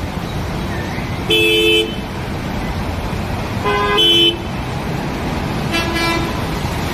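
Vehicle horns honking three times, each blast about half a second long, the last one fainter. Under them is a steady wash of traffic and wheels pushing through floodwater on a waterlogged street.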